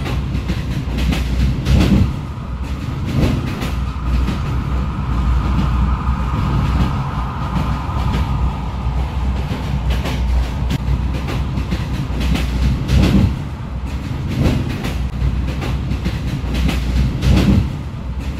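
A railway passenger train running on jointed track: a steady low rumble with wheels clacking over the rail joints every second and a half or so, and a faint whine in the first half.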